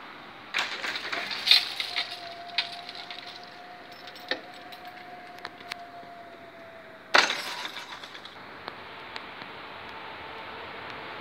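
Level-crossing barrier boom swinging down. It sets off with a rattle and a clank about half a second in, hums steadily as it moves, and comes to rest with a loud clank and a brief rattle about seven seconds in.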